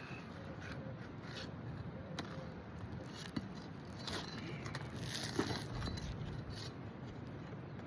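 Scattered clicks and short scraping strokes of hands and tools working on asphalt roof shingles, which are brittle and crisp with age.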